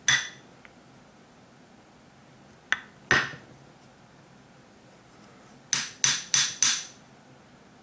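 A carburetor body being knocked sharply to shake a small metal check ball out of its passage. One knock at the start, a light tick and another knock about three seconds in, then four quick knocks near the end, about three a second, each ringing briefly.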